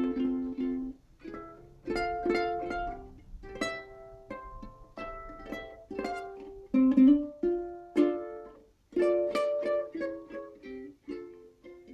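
Soprano Outdoor Ukulele with Southcoast strings played solo: plucked chords and single notes ringing out and fading, in short phrases with brief pauses between them.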